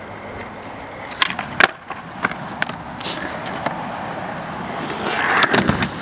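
Skateboard wheels rolling on concrete, with a string of sharp clacks from the board, the loudest about a second and a half in. The rolling noise swells near the end.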